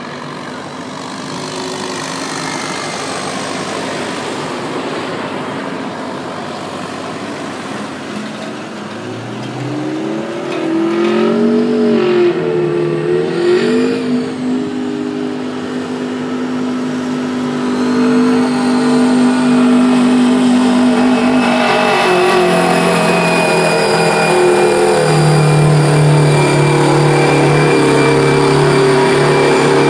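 Semi truck's diesel engine pulling hard under heavy load in a truck pull, getting louder as it comes closer. The engine pitch wavers up and down for a few seconds about ten seconds in, then holds steady, with a drop in pitch a little past twenty seconds.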